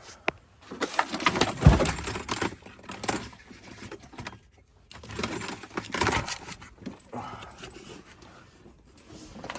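Irregular rustling and clattering of things being handled, with several sharp knocks in the first half.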